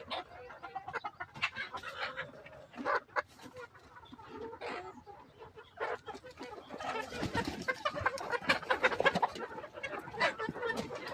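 A large flock of chickens clucking, many short overlapping calls at once, growing busier and louder about two-thirds of the way through.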